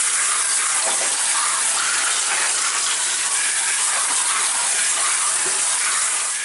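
Kitchen faucet spraying water over a plastic colander full of small eggplants: a steady rush of water splashing on the fruit.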